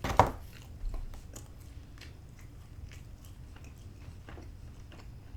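Close-miked eating of pizza: a loud bite just after the start, a smaller one about a second in, then soft, scattered chewing.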